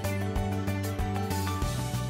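Background music: an instrumental track with held notes over a steady beat.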